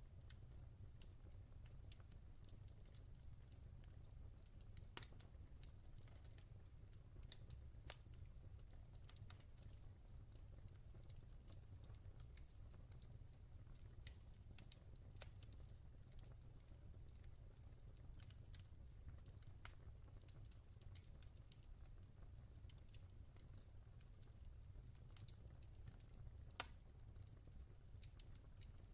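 Log fire crackling softly: scattered, irregular small pops and snaps over a low steady rumble, with one louder pop near the end.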